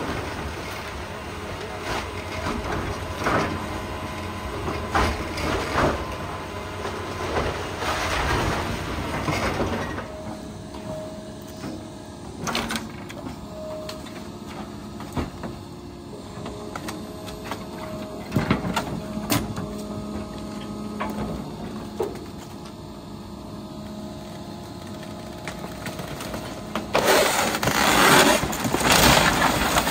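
John Deere excavator's diesel engine running steadily while its bucket and thumb tear apart a wooden building, with repeated sharp cracks of splintering timber and knocks of debris. Near the end a loud, long crash of breaking and falling wood.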